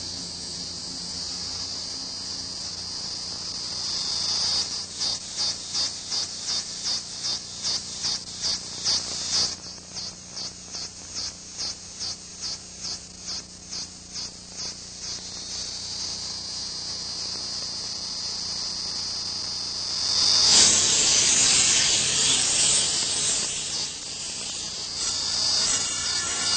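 Electronic soundtrack of high-pitched hiss that breaks into rapid even pulses, about three a second, from about four to fifteen seconds in, chirping like insects. It turns steady again, then swells into a louder rush of noise about twenty seconds in.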